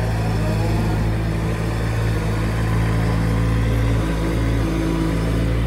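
Diesel engine of a 2016 MEC 60-J boom lift running steadily.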